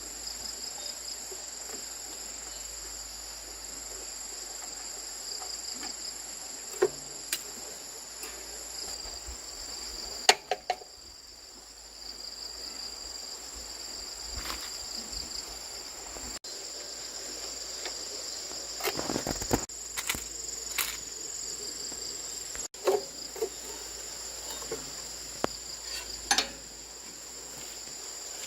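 A steady, high-pitched insect chorus trilling continuously, with pulsing runs of chirps, over which come occasional sharp knocks and clicks.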